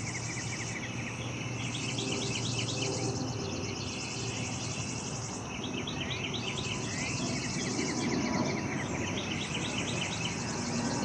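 Outdoor summer chorus: insects drone in a high band that pauses briefly every couple of seconds, while songbirds sing repeated rapid chirping trills. A low, steady background rumble sits underneath.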